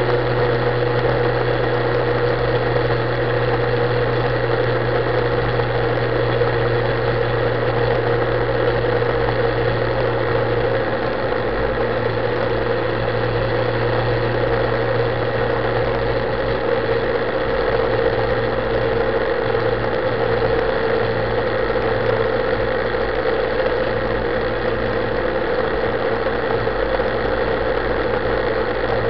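Motorcycle engine running steadily at about 4,000 rpm under light throttle while cruising, with wind noise from riding at speed.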